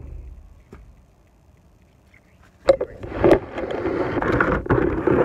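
Handling noise from the recording phone as it is picked up and carried: a sharp knock about two and a half seconds in, then continuous rubbing and rustling against the microphone.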